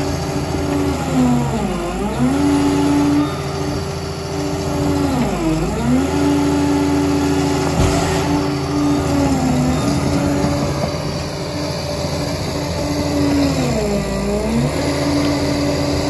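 Liebherr PR 746 crawler dozer's diesel engine running steadily at high speed. Its pitch dips and comes back up three times: about two seconds in, about five seconds in, and near the end.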